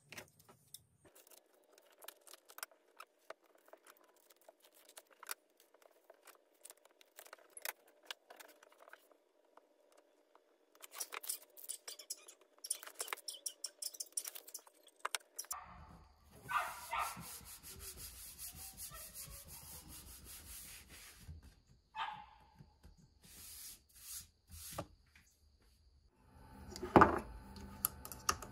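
Hands working double-sided tape onto a wooden board: scattered light clicks and rubbing, a run of rapid crackling in the middle, and a sharp knock near the end.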